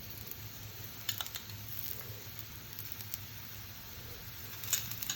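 A paratha frying in a little oil on a flat dosa griddle: a faint steady sizzle, with a few light clicks and taps, the sharpest about a second in and near the end.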